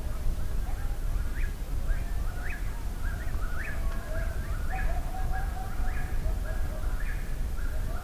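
Distant coyotes howling: long, wavering drawn-out howls. Over them, eastern whip-poor-wills sing their repeated whip-poor-will phrase, each ending in a sharp rising note, about once a second.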